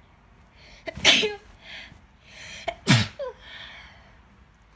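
A young woman sneezing twice, about two seconds apart, each sneeze after a short breath in. These are sneezes of what she suspects is a cold coming on.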